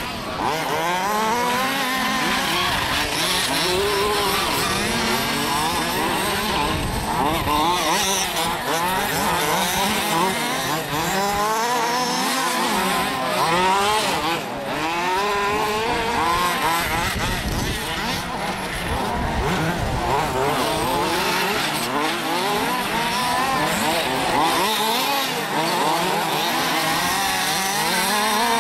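Several large-scale (1:5) off-road RC buggies with small two-stroke petrol engines revving at once. Their overlapping pitches keep rising and falling as the cars accelerate and brake around the track.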